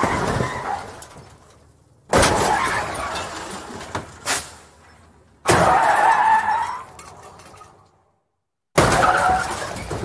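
Car crash sound effects in quick succession: three sudden impacts of crunching metal and breaking glass, about three seconds apart, each fading away over a second or two. The second impact is followed by a screech that rings on for about a second and a half.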